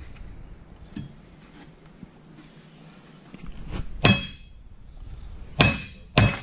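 A hammer striking a new wheel stud into the flange of a 1965 Chevy El Camino rear axle shaft: three sharp metal blows in the second half, the steel axle ringing after each, with a light tap about a second in.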